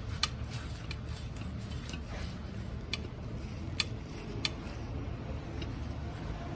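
A few sharp metallic clicks, irregularly spaced a second or more apart, over a low steady hum, from hand work on a car's brake backing plate beside the disc rotor.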